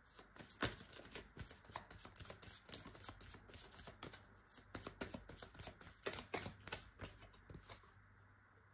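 Tarot cards being shuffled and handled by hand: a run of light, irregular flicks and taps that thins out near the end.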